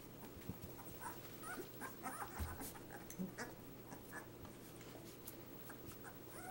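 Newborn Labrador puppies squeaking and whimpering in short, faint, high cries, busiest in the first half, with soft scuffling on the rug.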